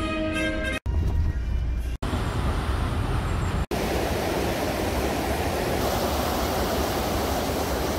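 Short clips cut one after another: low vehicle road noise with a steady tone over it at the start, then from just before halfway a steady rush of water pouring over a weir.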